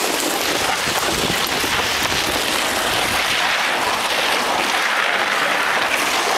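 Steady scraping, crunching hiss over icy snow: a plastic sled sliding along and running feet on the frozen crust.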